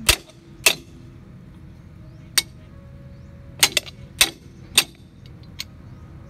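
A series of about eight sharp clicks or knocks at irregular intervals, some in quick pairs, over low steady background noise.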